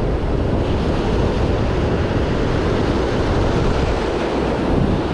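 Ocean surf washing on a beach, with wind rushing across the microphone: a steady rushing noise.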